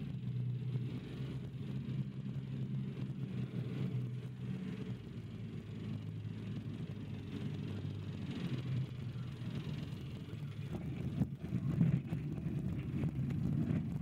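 Jabiru light aircraft's engine running at low power while the plane rolls along a dirt runway after touchdown: a steady low drone with rumble from the wheels on the gravel, which grows rougher and more uneven near the end.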